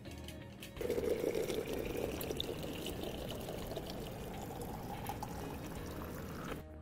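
Water from a water dispenser's spout pouring in a thin stream into a plastic bottle, starting about a second in and stopping just before the end. Its tone rises gradually as the bottle fills.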